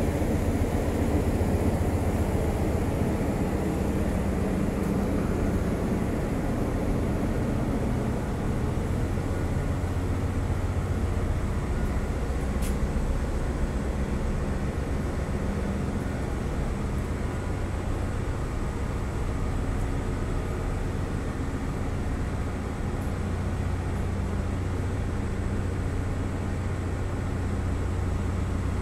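Ship's engines and machinery running: a steady low rumble with a constant hum.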